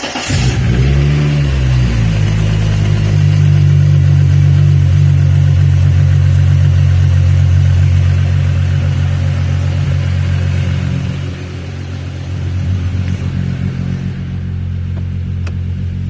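1998 VW Jetta Mk3 engine running just after being started by jumping the starter solenoid. Its speed swings for the first couple of seconds, then it runs steadily, and the note drops a little about eleven seconds in.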